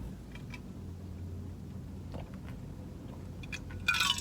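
Chewing boneless chicken wings with a few soft mouth clicks over a steady low hum, then a short louder mouth sound near the end.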